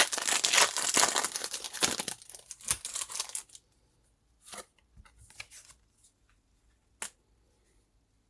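Foil wrapper of a Pokémon TCG Crown Zenith booster pack being torn open and crinkled for about three and a half seconds, then a few faint rustles and a single tick.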